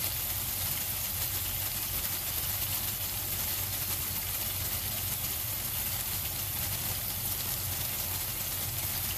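Pork loin pieces sizzling steadily in oil in a nonstick frying pan, with a low steady hum underneath.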